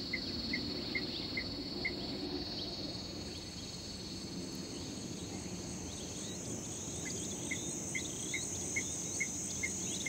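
Desert ambience of insects: a steady high-pitched drone with a short chirp repeating about two to three times a second, pausing for a few seconds in the middle and then resuming.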